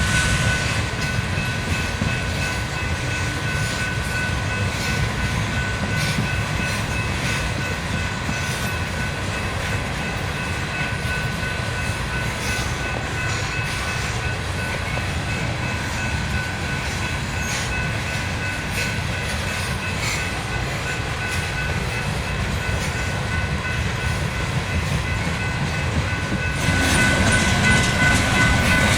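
Freight train rolling by, a steady low rumble of rail traffic with a faint thin high tone held over it; it gets louder near the end.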